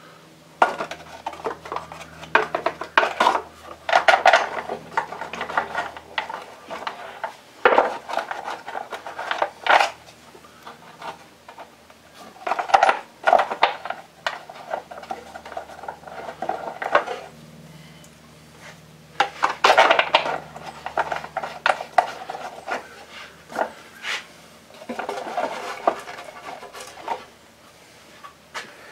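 Metal parts and hand tools clinking and scraping while a Stihl TS400 cutoff saw is being reassembled by hand, in irregular bursts of clatter with short pauses between them.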